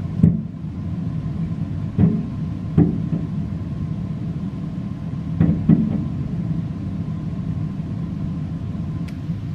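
Distant fireworks shells bursting as dull booms, about five in all, with a close pair a little past halfway, over a steady low rumble.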